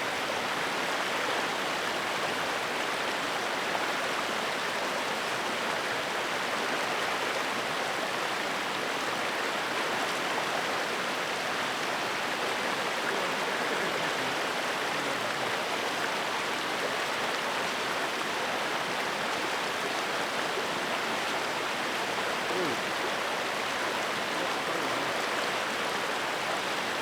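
Waterfall and creek water rushing steadily, an even hiss with no break.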